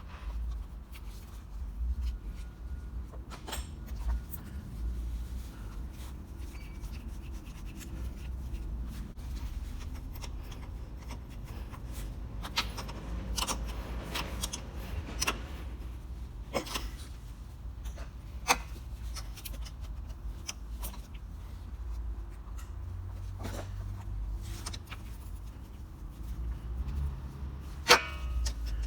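Hand tools working on metal parts: scattered clinks, taps and scraping, with a sharp knock near the end.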